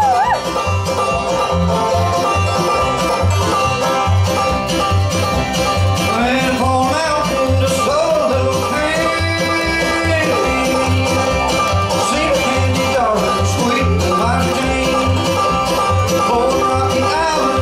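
Bluegrass band playing live through a stage PA: clawhammer banjo, mandolin, guitars and upright bass, with the bass keeping a steady beat.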